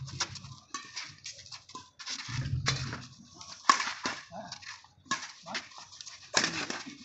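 Badminton rally: irregular sharp cracks of rackets striking the shuttlecock, the loudest about three and a half seconds in, with a low hum coming and going twice.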